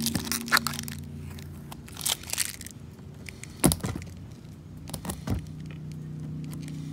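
Packing tape being peeled off a J-B Weld repair on a plastic bumper, in a few short pulls, with a steady low hum behind.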